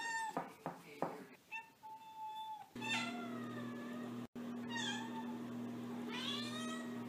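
Domestic cat meowing several times in separate calls, some falling and some rising in pitch. From about three seconds in, a steady low hum runs underneath.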